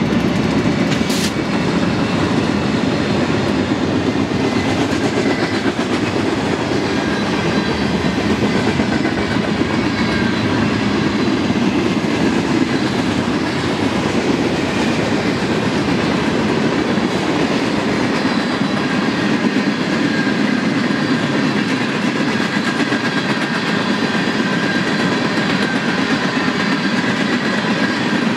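A freight train's cars rolling past at speed: steel wheels running on the rails make a steady, loud noise, with one sharp click about a second in.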